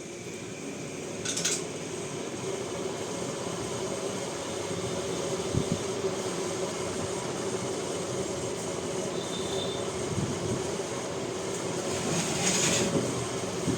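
Old ceiling fan running steadily, a continuous even mechanical hum.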